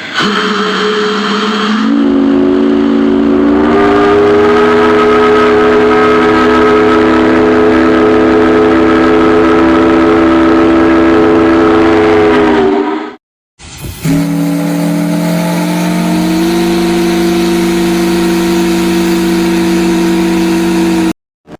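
Ship's whistle sounding two long blasts, each a chord of several tones that steps up slightly in pitch before holding steady. The first lasts about eleven seconds and stops abruptly; the second starts about a second later and runs about seven seconds.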